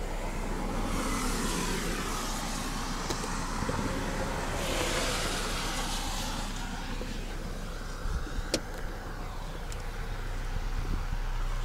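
Roadside noise picked up on a police body camera: a constant low hum under a hiss of noise that swells up twice, with a single sharp click about two-thirds of the way through.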